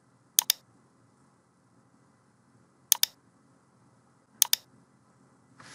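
Computer mouse clicking: three sharp clicks spaced about one and a half seconds apart, each heard as a quick pair of ticks.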